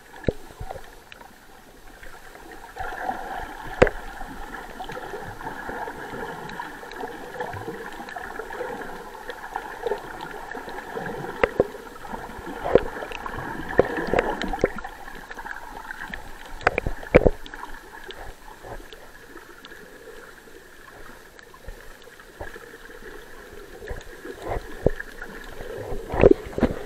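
Muffled underwater sound picked up by a submerged camera: water gurgling and sloshing, with scattered sharp clicks and knocks.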